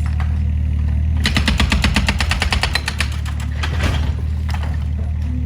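Demolition excavator's engine running steadily, with a burst of rapid, even hammering, about ten blows a second, starting about a second in and lasting about two seconds.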